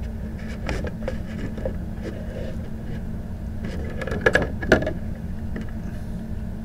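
A plastic Blu-ray case and its clear slipcover being handled: a few clicks and rustles, the loudest two close together a little past the middle, over a steady low hum.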